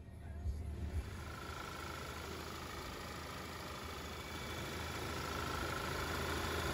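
Audi A6 2.0 TFSI turbocharged four-cylinder petrol engine idling with the bonnet open, a steady high whine over its running. Two thumps about half a second and a second in, and the sound grows louder near the end.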